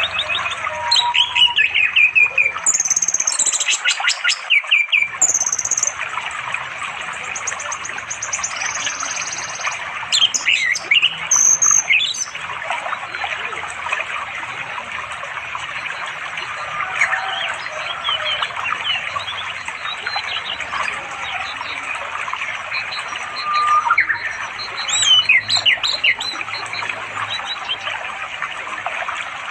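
Male orange-headed thrush singing to call a female: bursts of quick, varied whistled and chattering phrases, busiest in the first few seconds, again around ten seconds in and near the end. Under it runs the steady rush of a flowing stream.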